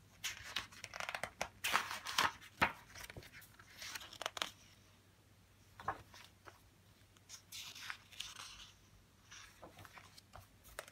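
Glossy pages of a hardback book being turned by hand: paper rustling and flapping in several short bursts, with quieter gaps between.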